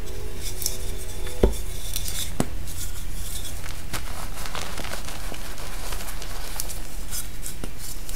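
Blocks of dyed gym chalk crushed in the hands: crumbly crunching and crackling, with a sharp crack about a second and a half in and a smaller one a second later. A steady low hum runs underneath.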